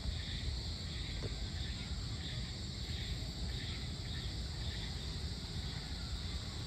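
Steady chorus of crickets and other insects, a constant high shrill, over a low rumble.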